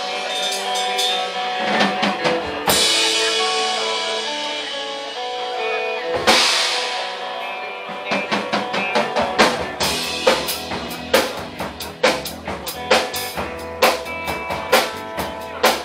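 Live rock band playing an instrumental intro on electric guitars and drum kit: held chords with cymbal crashes about two and a half and six seconds in, then drums and bass kick in with a steady beat about nine seconds in.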